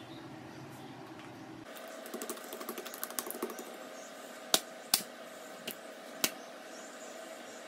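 Oiled parotta dough being patted and stretched thin by fingertips on a hard counter top: a quick run of light sticky taps and smacks, then four sharper clicks as the sheet is pressed and flapped.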